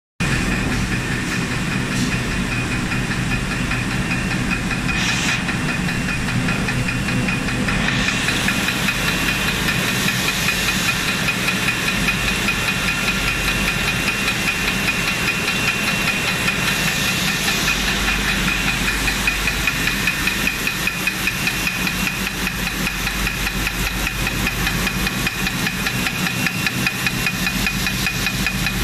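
Water-bottle line machinery running: bottle conveyor and rotary labeling machine, with a fast, even clatter over a steady hiss, a high whine and a low hum. The hiss grows louder and brighter about eight seconds in.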